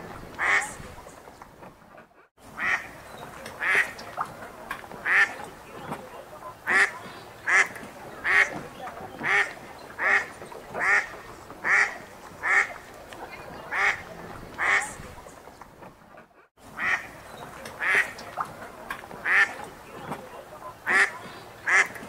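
Ducks quacking over and over, about one quack a second. The sound drops out briefly twice.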